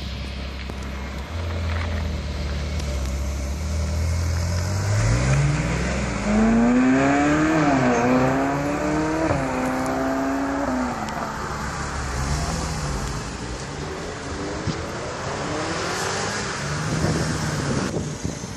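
Sports car engines as cars pull away one after another. Over the first five seconds there is a steady low engine hum. Then one car accelerates hard, its engine pitch rising, dipping at a gear change and rising again before falling away. Fainter engine notes follow as more cars drive off.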